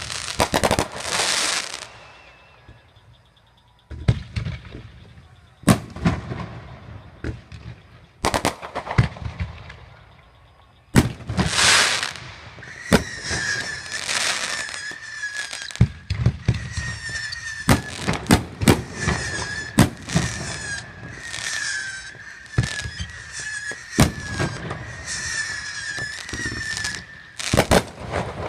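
Fireworks going off: a series of sharp bangs with hissing whooshes, then, from about halfway through, a long wavering whistle mixed with rapid crackling and more bangs that stops just before the end.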